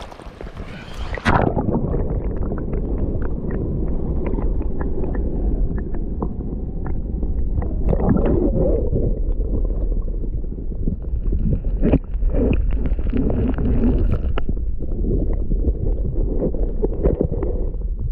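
Stream water heard from a camera held underwater: after a splash about a second in as it goes under, a steady, muffled rushing and rumbling with scattered small clicks and knocks.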